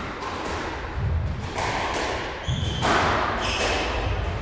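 Echoing thuds and strikes of squash play, the ball hitting racquets and walls, with two short high squeaks around the middle.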